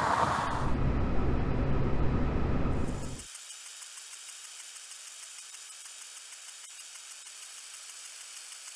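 Loud steady rushing and rumbling of a ship's countermeasure washdown system spraying water across the deck. It cuts off abruptly about three seconds in, leaving only a faint steady hiss.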